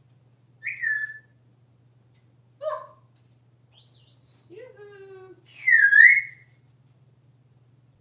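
An African grey parrot whistling and calling: about five separate whistles and squawks. A falling whistle near the start, a pitch rising to a high whistle just past the middle, and a loud whistle that dips and rises again about six seconds in.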